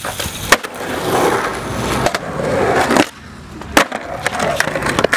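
Skateboard wheels rolling over the concrete of a skatepark bowl, with a few sharp clacks of the board striking the concrete, about half a second in, around two seconds in and near four seconds. The rolling noise drops away briefly about three seconds in.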